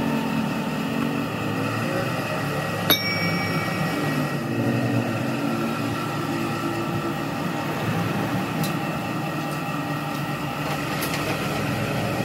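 A single sharp metallic clink, ringing briefly, about three seconds in: the small splined gear being set down on the steel tractor bull gear. Under it runs a steady mechanical drone with several held tones.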